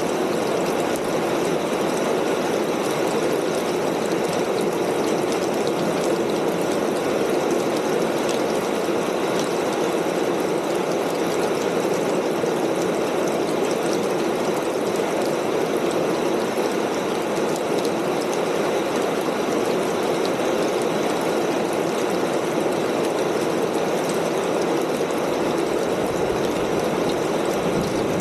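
Rain falling steadily on a corrugated tin roof: a dense, even patter of countless drops.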